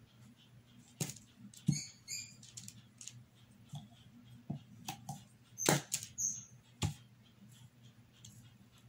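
Scattered light taps and clicks of a paintbrush being dipped and worked in a small jar of black paint, with a few sharper knocks from handling the jar.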